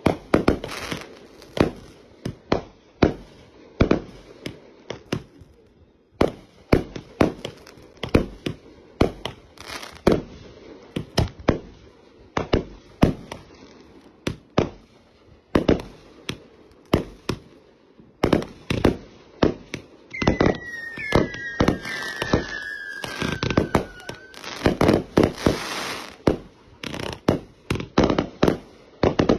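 Fireworks going off: a rapid string of sharp bangs, several a second, with crackling. About two-thirds of the way through, two whistles fall in pitch, followed by a dense burst of crackle.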